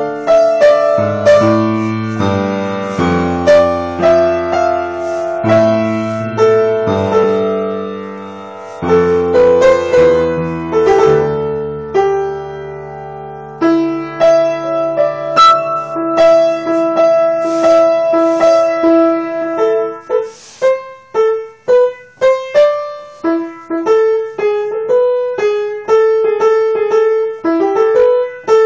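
Piano being played: sustained chords under a melody, changing from about twenty seconds in to quicker, detached single notes.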